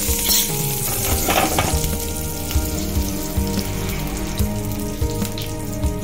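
Whole spices (dry red chillies, coriander seeds and cumin) sizzling steadily in hot oil in a kadhai as a tadka is tempered.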